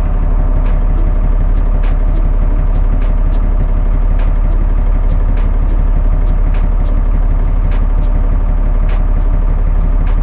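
LMTV truck's diesel engine idling steadily, heard from the cab, with regular sharp clicks about two to three times a second: the CTIS solenoid valves working to inflate the tires.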